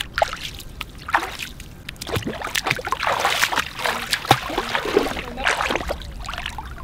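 Bare feet wading through shallow lake water among rocks, with irregular splashing and sloshing that is busiest about three seconds in.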